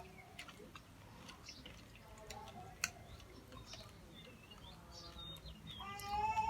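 A cat meowing near the end, one drawn-out call that rises then falls, after a quieter stretch of faint clicks and short chirps.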